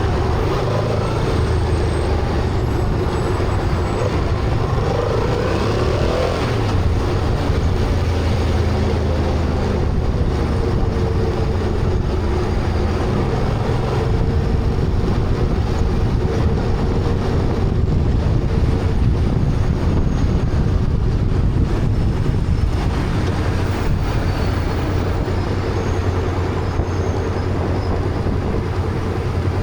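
Honda Transalp motorcycle riding at road speed: a steady low engine drone with wind and tyre hiss. The upper hiss thins out for the last several seconds.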